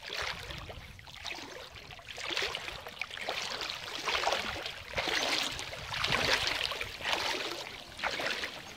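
Water sloshing and splashing around a swimming German wirehaired pointer puppy, in surges about once a second.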